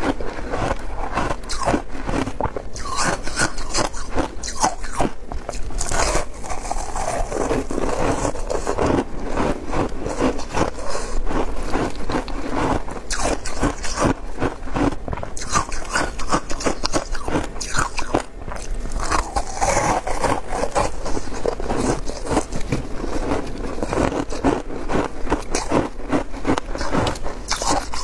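Close-miked biting and chewing of compacted shaved ice dipped in passion fruit juice: a dense, unbroken run of crisp crunches.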